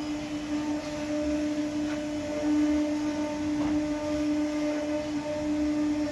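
Woodworking machinery running steadily: a constant mid-pitched whine with its overtones, swelling and easing slightly in level, over a faint low rumble.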